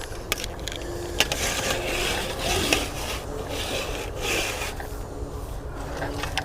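Rubbing and scraping handling noise, with a couple of sharp clicks early on and several short rasping swells, as a portable antenna is turned and adjusted by hand.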